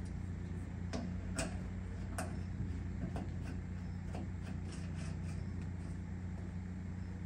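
Scattered light clicks and taps as hoses and brass fittings are handled on top of an aluminum fuel cell, over a steady low hum.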